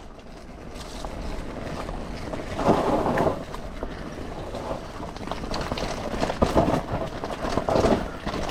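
Yamaha YZ125 125cc single-cylinder two-stroke dirt bike engine running off-road, surging in several bursts of throttle, loudest about three seconds in and again toward the end, with wind on the microphone.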